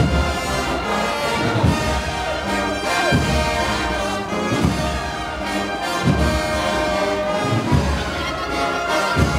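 A processional brass band (an Andalusian agrupación musical, with trumpets and trombones) playing a march. The sustained brass melody runs over a deep beat about every second and a half.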